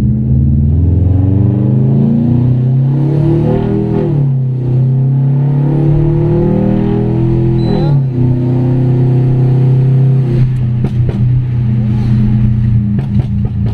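Turbocharged 2.5-litre boxer four of a 2011 Subaru Impreza WRX STI A-Line, heard from inside the cabin, accelerating hard in its high-boost mode. The revs climb, drop at an automatic upshift about four seconds in, climb again and drop at a second upshift about eight seconds in, then pull on steadily. A run of sharp clicks comes in over the last few seconds.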